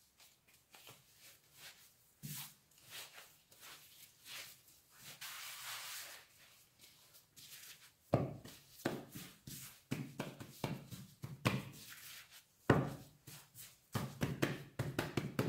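Hands in thin plastic gloves kneading soft gluten-free dough on a floured marble countertop: soft slaps, pats and rubbing. From about halfway the thumps get louder as the dough is pressed and patted flat.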